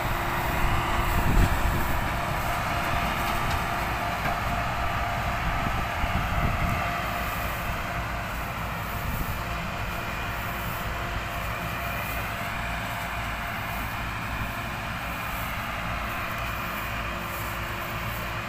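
Thai Rung Ruang (TRM) sugarcane harvester running steadily as it works the cane rows: a continuous mechanical drone with a faint steady hum over it. A heavier low rumble fades out about seven seconds in.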